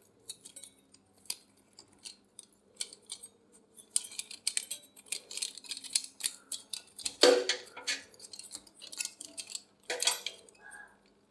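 Irregular small clicks and clatter of a CPU heatsink and its plastic fan being handled and fitted together, with a couple of louder knocks about seven and ten seconds in.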